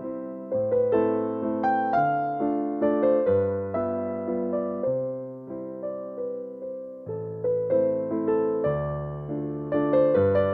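Background music played on an electric piano: a gentle melody of struck notes and chords, each fading before the next, about two notes a second.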